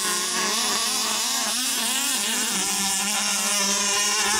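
Two HPI Baja buggies' 29–30cc two-stroke petrol engines running at high revs, a loud buzzing whose pitch wavers up and down as the throttles are worked.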